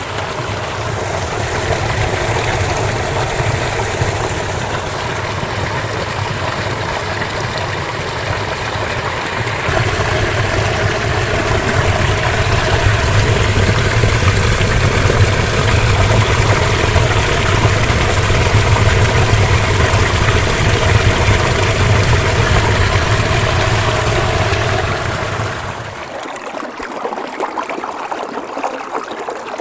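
Small forest stream, swollen after a night of rain, rushing over stones right by the microphone: a steady water noise with a deep rumble under it. About 26 seconds in the rumble drops away and the water sounds lighter and quieter.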